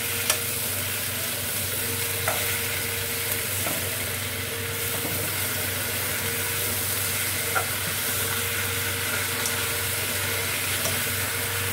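Bok choy stir-frying in hot oil in a nonstick wok, with a steady sizzle as a wooden spatula tosses it. A few light knocks come from the spatula striking the pan.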